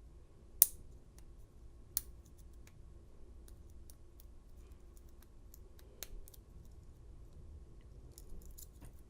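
Faint small metallic clicks and scrapes of a pick and tension bar working the pins of an American 700 padlock's pin-tumbler cylinder, with two sharper clicks about half a second and two seconds in. The pins are being set one by one until the last one clicks into place on pin 1.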